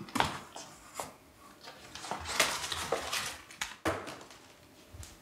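A run of sharp clatters and knocks, like hard household objects being handled or knocked about, with rustling in between. A dense cluster comes about two to three seconds in, and one more hard knock follows near four seconds.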